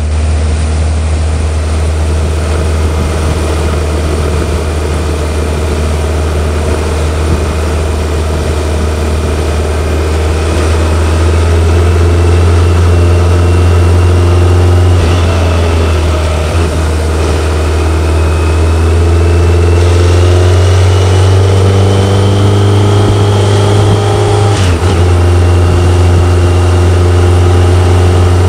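BMW K1100LT motorcycle's inline-four engine running under way, heard from the rider's seat. Twice the engine note climbs in pitch as the bike accelerates, and each climb breaks off briefly.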